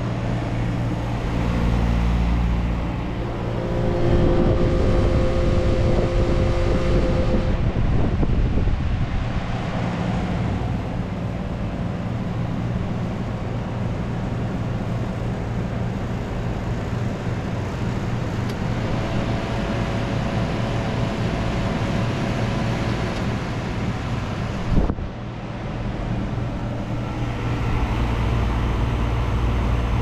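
Vintage window air conditioner running: a steady low compressor hum under the rush of the fan. A sharp click about 25 seconds in.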